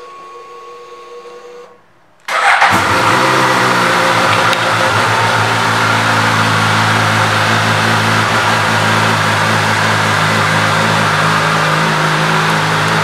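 A steady electric whine for the first second or two, then the 2016 Suzuki GSX-S1000's inline-four engine starts about two seconds in, with a brief rev on catching. It then settles into a steady idle.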